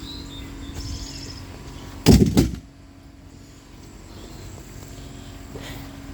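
A sudden loud clatter about two seconds in, over a steady low hum; birds chirp faintly now and then.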